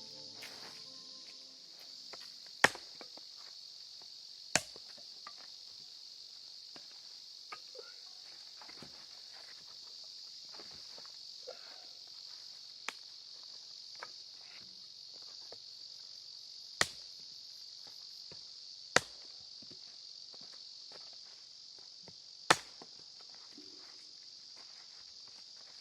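Steady high-pitched insect chirring, with five loud sharp knocks at irregular intervals of a few seconds and a few fainter ticks between them.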